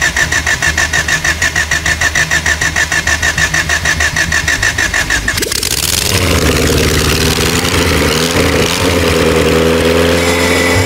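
Freshly rebuilt Honda Civic four-cylinder engine, sitting on the ground and rigged to run, being cranked by its starter in a fast, even rhythm for about five seconds. About halfway through it catches and keeps running, picking up a little and then holding steady: its first start after reassembly, with the distributor timing set by guesswork.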